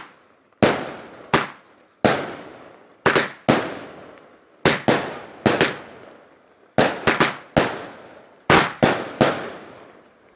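Firework going off: a string of loud, sharp bangs at irregular intervals, roughly two a second, each trailing off in a short echo.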